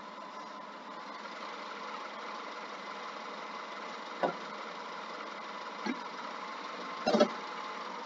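2005 Subaru Impreza's 2-litre flat-four engine idling on new spark plugs and leads, heard faintly and thinly through a laptop's built-in microphone as a steady hum. Three short knocks come about halfway through and near the end.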